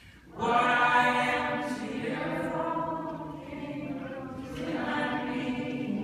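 Many voices singing together like a choir, a concert crowd singing along: a long held sung line that comes in about half a second in, eases off in the middle and swells again near the end.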